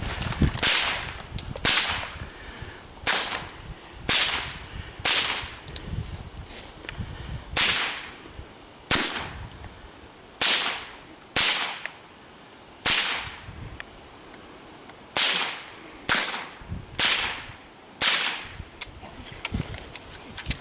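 Rapid .22 LR rifle shots during a timed run: about sixteen sharp cracks, roughly one a second at an uneven pace, each with a short echoing tail.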